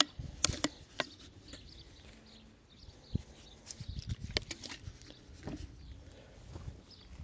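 Handling noises of a plastic bottle and a cloth rag as degreaser is tipped onto the rag: a few sharp clicks in the first second, then scattered soft bumps and rubbing.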